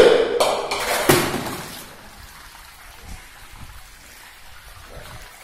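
Hydraulic ram pump knocking as its waste valve slams shut, with water splashing. There are three sharp knocks in the first second or so, then only a quieter wash of running water.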